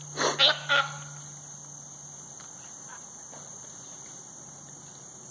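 Three loud cries in quick succession in the first second, the distress bleats of a deer fawn being attacked. After them comes a steady, high-pitched drone of insects.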